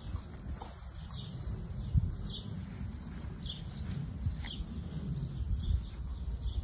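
A small bird chirping in short high notes, about once a second, over a steady low rumble.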